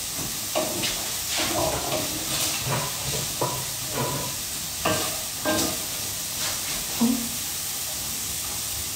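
Food sizzling in a frying pan, a steady hiss, with irregular knocks and clatters of kitchen utensils about every half-second to second.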